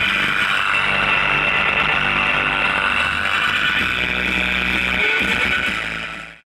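Music played through a subwoofer driven by a homemade TDA2003 amplifier, with changing bass notes. It cuts off suddenly near the end.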